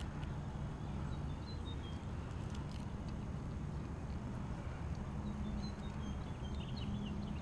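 Steady low rumble of outdoor ambience, with faint high bird chirps a few times and a couple of light clicks about three seconds in.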